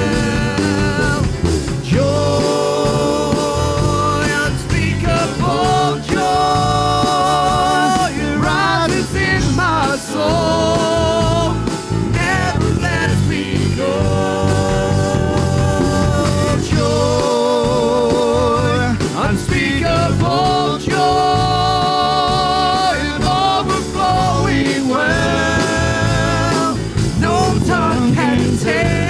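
Gospel worship music from a church band: a sung melody of long held notes with vibrato over continuous accompaniment.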